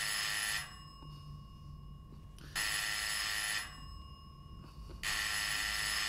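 Telephone ringing in repeated rings of about a second each, about two and a half seconds apart, three of them, the first cut off just after the start.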